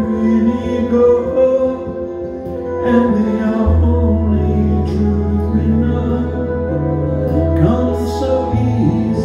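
Live music: a flute melody over strummed acoustic guitar, with sustained low bass notes that change pitch a few times.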